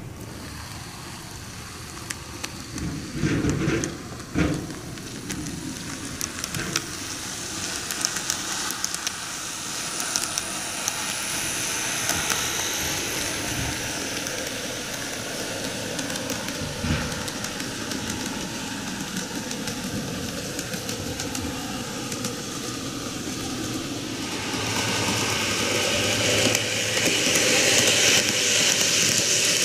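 N-gauge TOMIX model trains running on the track: a steady whirring hiss of motors and wheels, with fine rapid clicking of the wheels over the rails. A few knocks come in the first few seconds, and the sound grows louder near the end as a train passes close.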